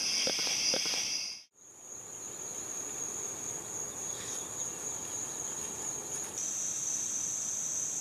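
Steady chorus of calling insects, several shrill high tones at once, cut off suddenly about a second and a half in. It is followed by a single steady, very high insect drone that steps slightly lower about six seconds in.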